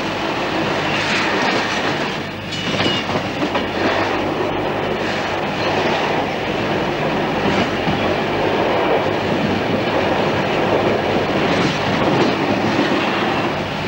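Passenger train running along the track: a steady rumble of wheels on the rails over a low steady hum.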